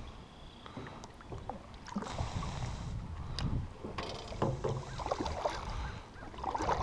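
Canoe paddle strokes: the blade pulling through the water with splashing and dripping, in uneven surges that grow louder about two seconds in.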